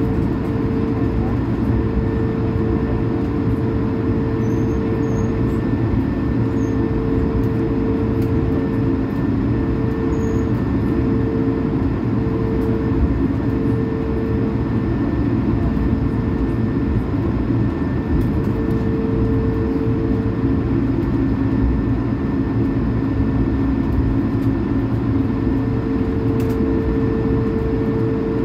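Cabin noise of an Airbus A220-300 taxiing, its Pratt & Whitney PW1500G geared turbofans at low taxi power: a steady low rumble with a humming tone that fades in and out several times.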